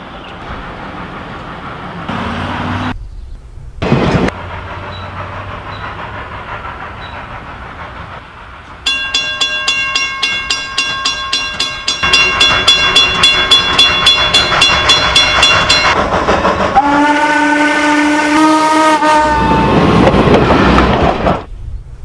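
Steam locomotive working toward the listener. About nine seconds in, its multi-note whistle sounds a long blast lasting several seconds over a regular exhaust beat. Then comes a shorter, lower whistle blast that rises slightly, and the loud rush of the engine near the end.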